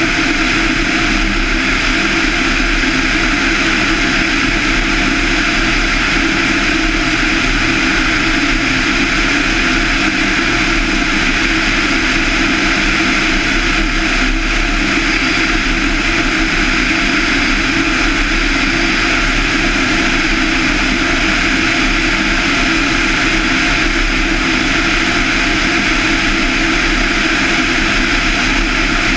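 Van's RV-7's 200 hp Lycoming IO-360-A1A four-cylinder engine and propeller running in flight, a loud, steady drone that holds constant throughout.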